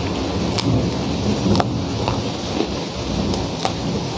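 Heavy rain falling steadily, with a low rumble underneath, and a handful of sharp crunches as a crispy cracker is bitten and chewed close to the microphone.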